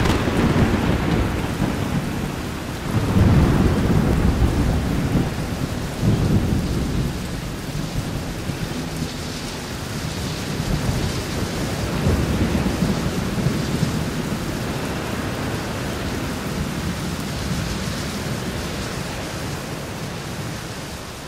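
Thunderstorm sound effect: steady rain with rumbles of thunder that swell about three seconds in, again at six seconds and near twelve seconds.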